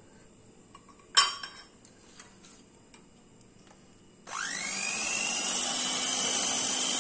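A sharp clink about a second in, then an electric hand mixer switches on a little past halfway, its whine rising as the motor spins up and settling into a steady whirr as the beaters whip chilled cream at slow speed.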